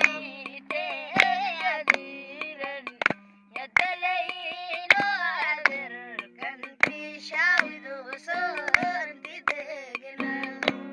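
Music: a solo voice sings an ornamented, wavering melody over a steady low drone, with sharp percussive strikes throughout.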